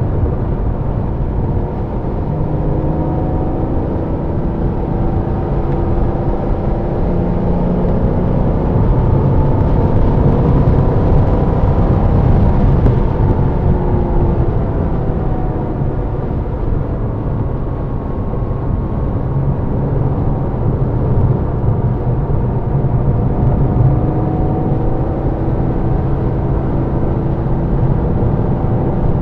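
Inside a Porsche lapping a wet race circuit: the engine runs under load, its pitch repeatedly climbing and dropping through gear changes and braking, over a steady wash of road and wind noise.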